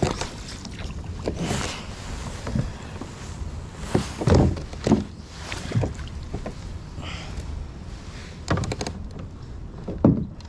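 Irregular knocks and bumps against a kayak while a hooked bass is fought on light tackle, with the loudest thumps about four to five seconds in and again near the end.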